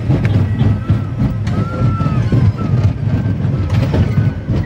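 Roller coaster car rumbling loudly along its track, with a few faint high whines drifting in pitch over the rumble.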